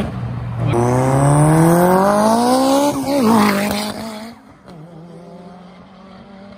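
A car accelerating hard through the gears. The engine's pitch climbs, breaks briefly at a shift near the start, climbs again, and shifts or lifts about three seconds in. It then fades as the car pulls away, leaving a quieter steady engine hum.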